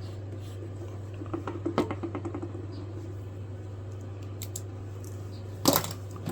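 Small clicks and rustles of hands working at the bench, over a steady low hum, with a short louder knock near the end.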